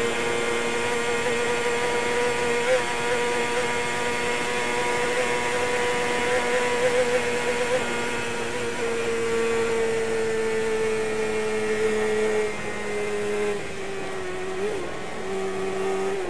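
Onboard sound of a racing sidecar outfit's 600 cc four-cylinder engine held at high revs, a steady high note over wind and road noise. The note eases slowly down in pitch over the second half and dips in loudness twice near the end as the throttle comes off a little.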